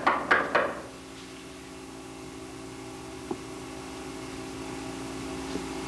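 Knocking on a door: a few quick knocks in the first second, then a steady low hum and hiss.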